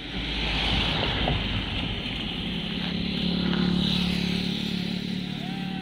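A moving vehicle: a steady rushing noise of wind and road over a low rumble, with a steady engine hum that becomes clearer about two seconds in.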